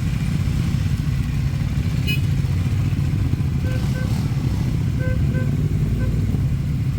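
Motorcycle engines running steadily, with a few short beeps in pairs in the middle.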